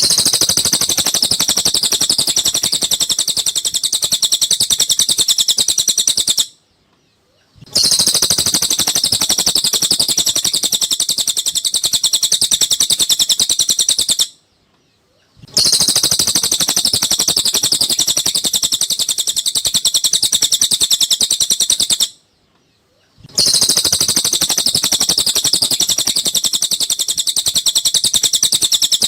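Cililin bird singing a fast, high, unbroken chattering trill in bouts of about six to seven seconds, each broken off by a pause of about a second, the same bout repeating four times.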